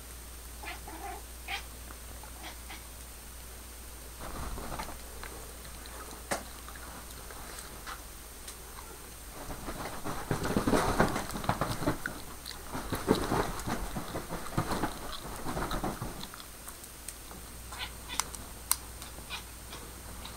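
A tortoiseshell cat scrambling and pouncing on a blanket, its claws scratching and the fabric rustling, loudest from about ten to sixteen seconds in. A few faint cat chirps come about a second in, and small clicks are scattered near the end.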